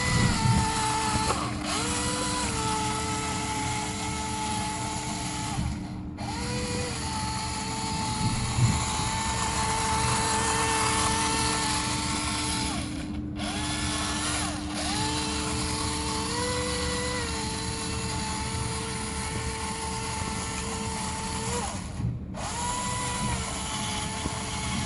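Toy RC farm tractor's small electric motor and gears whirring with a high whine that steps up and down in pitch, breaking off briefly a few times.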